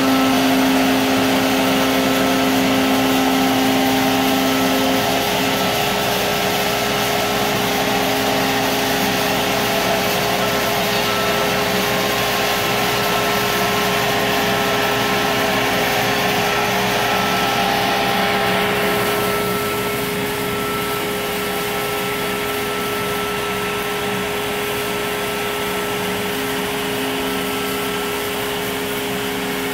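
CNC router spindle running with a steady whine as its bit cuts an aluminum composite panel, with dust-collection suction hissing through the brush dust shoe. About two-thirds of the way through, the high hiss drops away and the sound gets a little quieter, while the steady whine carries on.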